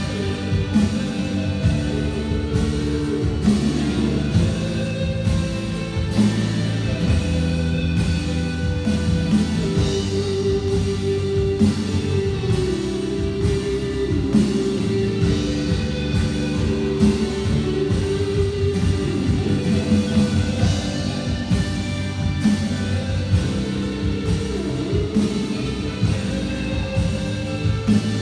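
Worship band playing a contemporary praise song: drum kit keeping a steady beat under guitar and held chords.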